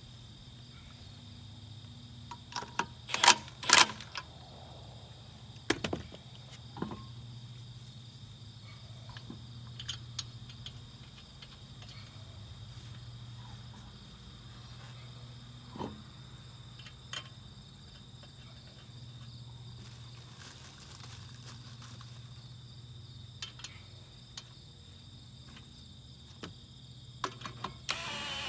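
Scattered sharp metal clanks and clicks as a car wheel is hung on the hub and its lug nuts started by hand, the loudest a pair about three to four seconds in. A steady chorus of insects runs underneath, and near the end a cordless impact wrench starts on a lug nut.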